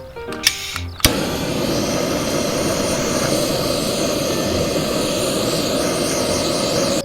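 A loud, steady rushing roar that starts abruptly about a second in and cuts off near the end.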